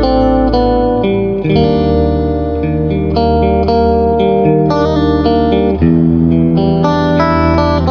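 Electric guitar played through an Effectrode PC-2A photo-optical tube compressor pedal: notes and chords ringing on at a steady, evenly held level.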